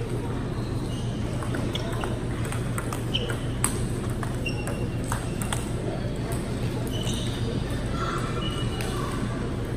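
Table tennis rally: the ball knocking back and forth between paddles and table, about a dozen sharp clicks over four seconds, then the rally ends.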